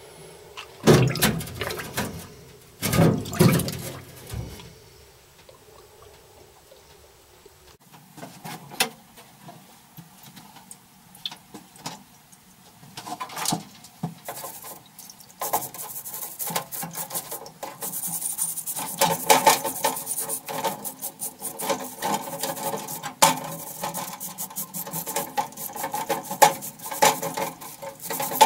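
Aluminium cylinder head of a Honda CT110 handled in a parts-washer tank of solvent: two metal knocks in the first few seconds, then splashing liquid and rapid scrubbing and rubbing that grow busy in the second half, over a steady hum.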